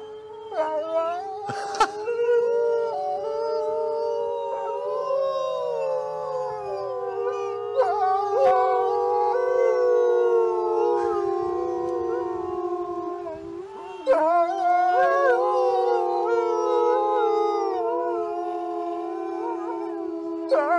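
A pack of wolves howling in chorus: several long, overlapping howls that glide slowly in pitch, with new, louder howls joining about fourteen seconds in. A short sharp snap sounds about two seconds in.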